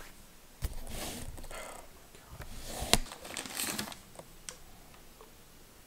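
Rustling and handling noises with scattered clicks and knocks, the loudest a sharp knock about three seconds in, as small toiletry bottles and items are picked through.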